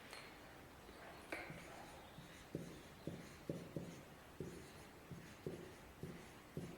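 Marker pen writing: a quiet run of about a dozen short taps and strokes at uneven spacing as words are written out.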